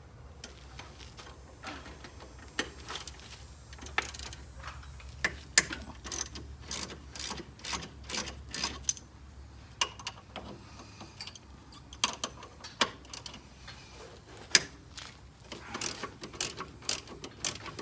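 A hand ratchet with a 15mm socket clicking in short runs as the brake caliper bolts are loosened.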